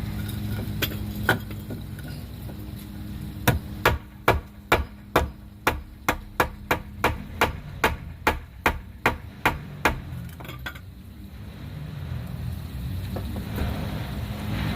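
A hammer striking about sixteen times in a steady run, two or three blows a second, after a couple of single knocks, over a steady low hum.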